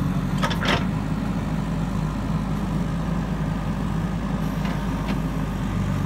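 JCB 3DX backhoe loader's diesel engine running steadily as the machine moves over the dirt. Two brief sharp clicks come about half a second in, and fainter ones around five seconds.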